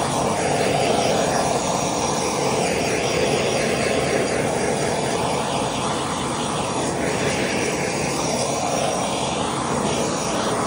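Handheld gas torch flame blowing steadily over wet epoxy resin to pop the air bubbles brought up by stirring.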